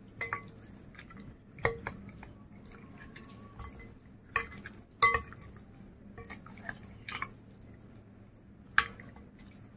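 Metal spoon clinking and scraping against a glass bowl while tossing chicken pieces in a thick marinade paste. The clinks come irregularly, about seven of them, with quiet between.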